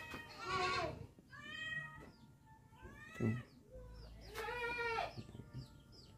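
An animal calling four times, each call drawn out for about half a second to a second and bending up and then down in pitch, with short pauses between them.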